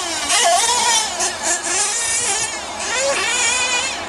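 Nitro glow engine of a Mugen MBX6T 1/8-scale off-road buggy revving, a high buzzing whine that rises and falls in pitch again and again as the car accelerates and slows around the track.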